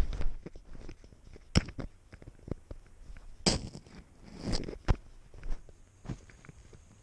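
A cat's paws and body crunching through deep snow, heard up close from a camera strapped to the cat: irregular crunches and sharp knocks, with snow brushing against the camera housing.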